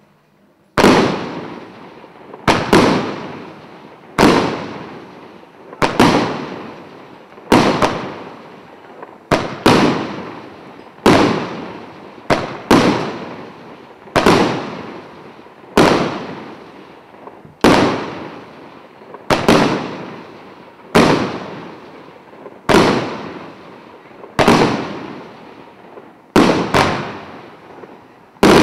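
Devco 10299 Cobalt Rain firework cake firing shot after shot, about one every one and a half to two seconds, with now and then two shots in quick succession. Each sharp report trails off in a fading hiss.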